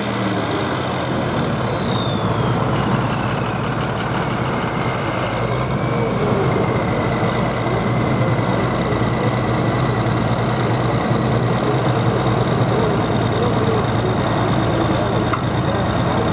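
A John Deere hot farm pulling tractor's 466-cubic-inch turbo diesel idles after its pull. A high turbo whistle winds down over the first few seconds, then a steady whine sits over the low, even idle.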